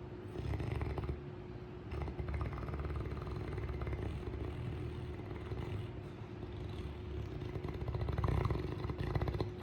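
Saint Bernard dog snoring in low, rattling snores, three drawn-out breaths, the last one the loudest.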